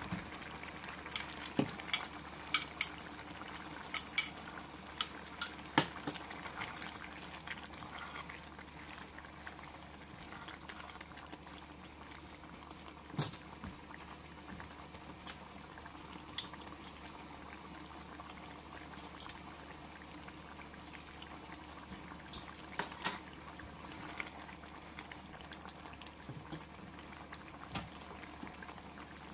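A pot of pork mechado stew simmering with a steady bubbling. Sharp knocks and scrapes of a silicone spatula against the pot come during stirring in the first several seconds, with a few more knocks later.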